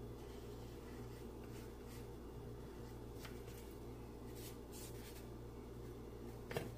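Charcoal stick strokes scratching faintly on drawing paper, a few short strokes spread through, over a steady low hum, with a light tap near the end.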